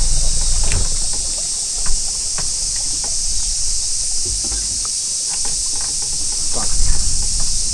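A steady, high-pitched insect chorus over a low rumble, with a few light clicks.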